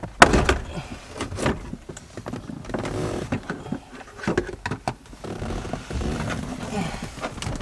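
Plastic interior trim in a car footwell being pried and worked loose by hand with a plastic trim-removal tool: irregular clicks and knocks with creaking plastic.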